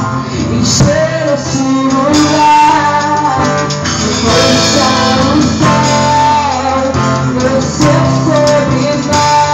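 Gospel worship song with a singing voice carrying the melody over guitar, bass and drums, with steady drum and cymbal hits.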